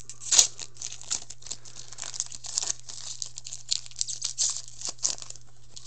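Foil wrapper of a Panini Titanium hockey card pack being torn open and crinkled by hand, a run of sharp crackles with the loudest tear about half a second in.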